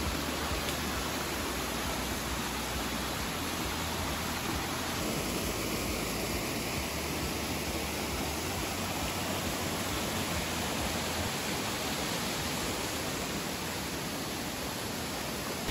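A waterfall rushing steadily.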